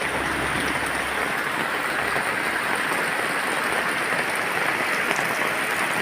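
Steady rain falling, an even patter of drops at a constant level.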